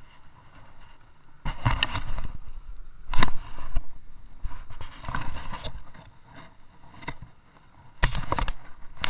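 Irregular bursts of rustling, crackling handling noise, with a sharp crack about three seconds in.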